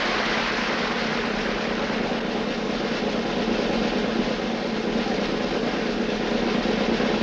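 Steady noise of a large crowd under a circus big top, with a low, steady hum held underneath.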